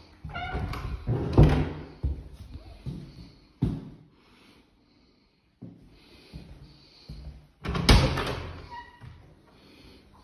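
A series of knocks and bangs, like things being shut or struck. The two loudest come about a second and a half in and near eight seconds in, with a smaller knock in between.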